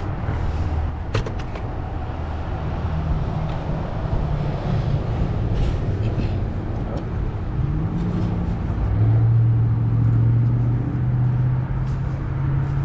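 A car engine running steadily; about eight seconds in its pitch rises and it then holds louder. A few faint clicks sound over it.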